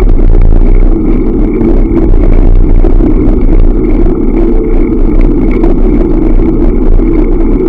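Loud, steady wind buffeting and road rumble on the built-in microphone of a Niceboy Vega X Pro action camera mounted on a moving bicycle.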